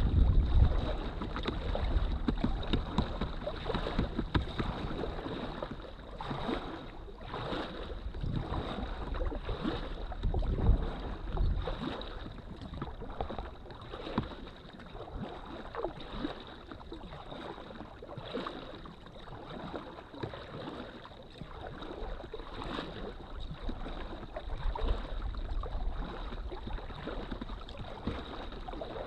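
Paddle strokes dipping and splashing and water lapping against the hull of an inflatable drop-stitch kayak under way. Wind buffets the microphone, heaviest at the start.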